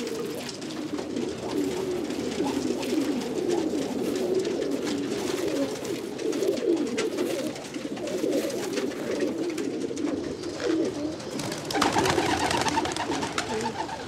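Domestic pigeons cooing, many low coos overlapping without a break.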